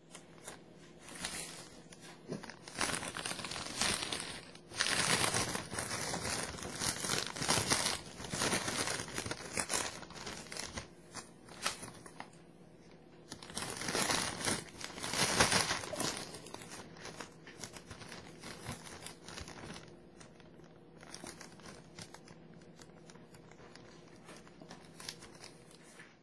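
Plastic zip-top bag crinkling and rustling as cabbage is handled and pushed into it. It comes in uneven bursts, loudest in two stretches of a few seconds, and is softer toward the end.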